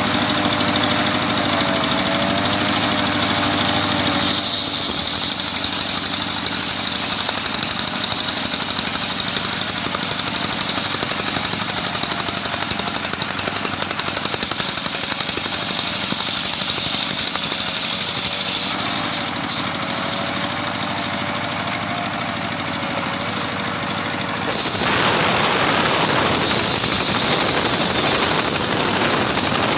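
Engine-driven homemade sawmill running steadily while its blade cuts through coconut-palm trunk wood. The cutting hiss grows louder about four seconds in, eases around nineteen seconds, and turns rougher and louder near twenty-five seconds.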